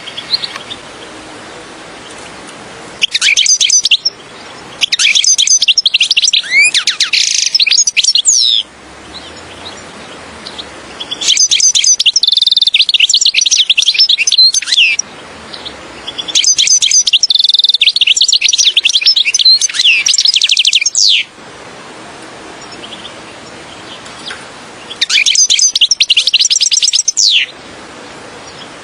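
European goldfinch singing: five bursts of rapid twittering and trilling phrases, each a few seconds long, with short pauses between them over a faint steady hiss.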